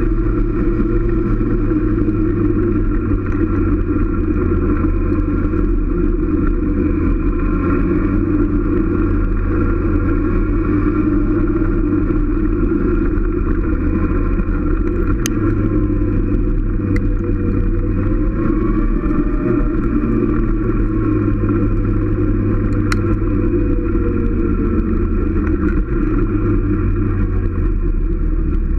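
Motorcycle engine running steadily as the bike rides along a winding road, heard close up from on the bike. The engine note rises and falls gently, shifts abruptly twice (about halfway through and near the end), and there are a few small clicks.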